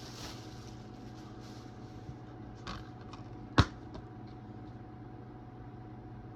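A plastic DVD case being handled and opened: light rustling and one sharp click about three and a half seconds in, over a steady background hum.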